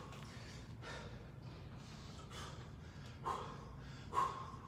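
A man's short, sharp exhales, about four puffs of breath timed with his punches as he shadowboxes, over a low steady room hum.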